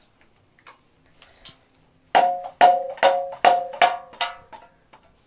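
A hard object struck six times in quick succession, about two knocks a second. Each knock is sharp and pitched, like a wood block, with a short ring. A few faint ticks come before them.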